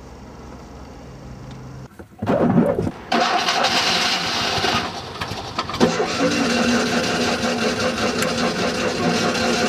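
Fiat 126's small air-cooled two-cylinder engine being started: the starter cranks it about two seconds in, and it catches and keeps running from about six seconds in. The engine is a hard starter.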